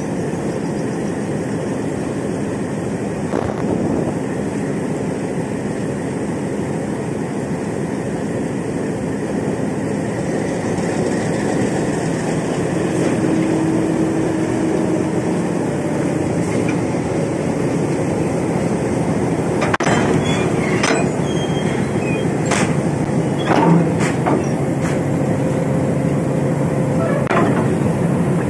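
Diesel locomotive engine running steadily, close up, while it is brought up to a passenger coach for coupling. From about 20 seconds in, a series of sharp metallic clanks comes from the coupler and buffers between the locomotive and the coach, the loudest about four seconds later.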